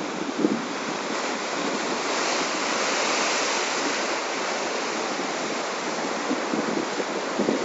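Heavy sea surf breaking and washing over rocks: a steady rushing wash that swells a little a couple of seconds in.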